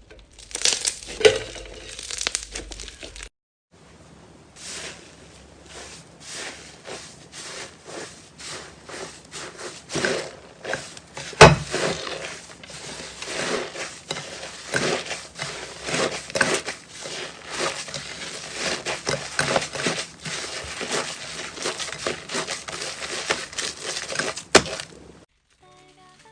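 Slime being squeezed and poked by hand, giving a dense run of small crackles, pops and squelches, with one sharp loud pop about eleven seconds in. A brief break about three seconds in, after which the crackling carries on.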